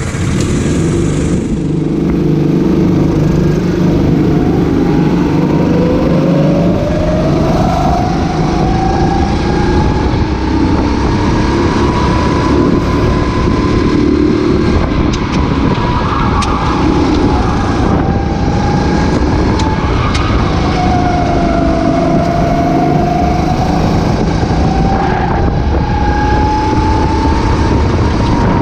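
Racing kart engine heard onboard, with wind across the microphone. The engine note climbs steadily for several seconds, then drops and picks up again a few times as the kart slows for corners and accelerates out.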